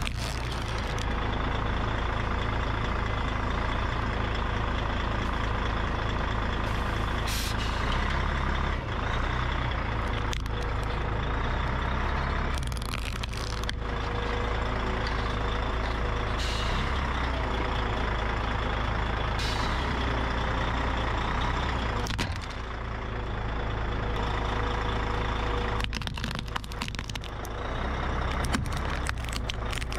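A heavy vehicle's engine running steadily while its tyre rolls over plastic toys, with several sharp cracks and crackling snaps of the plastic breaking under the wheel.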